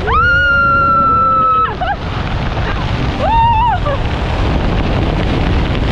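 Wind rushing hard over the microphone, with a person's long high-pitched yells over it: one held for almost two seconds at the start, and a shorter one about three seconds in.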